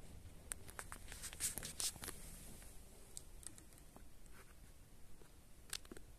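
Faint, scattered small clicks and light rustles against quiet room tone, bunched in the first couple of seconds and again near the end; no motor running is heard.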